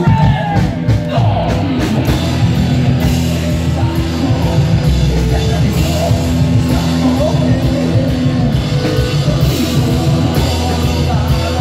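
A live band playing loud, driving rock music at full volume, with a singer's vocals over it.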